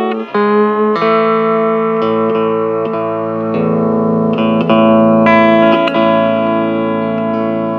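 Hawaiian steel guitar playing a slow melody in long sustained notes, with short slides in pitch between some of them.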